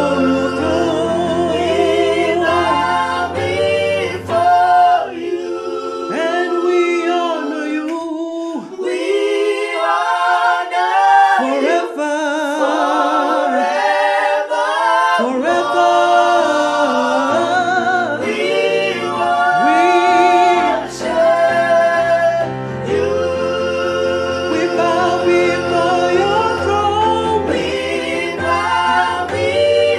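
Gospel worship song sung by several voices with electric keyboard accompaniment. About four seconds in the keyboard drops out and the voices carry on alone for about ten seconds, then it comes back in.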